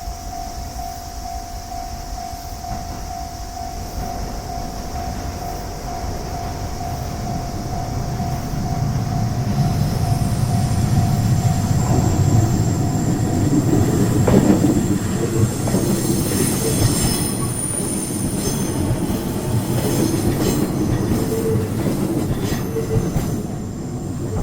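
Level-crossing warning bell ringing steadily, then a JR East Ome Line electric train running through the crossing. The train's rumble builds about eight seconds in, is loudest midway with high wheel squeal, and eases off near the end while the bell rings on.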